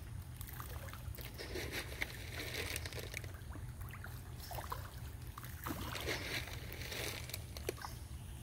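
Water splashing and sloshing as a crowd of fish feed at the surface, with small clicks and slurps and two busier spells of splashing, over a steady low rumble.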